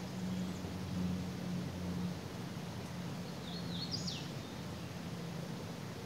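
Steady hiss of a flowing creek under a low hum. About three and a half seconds in, a songbird gives a short call of a few quick high chirps, the last one sliding down.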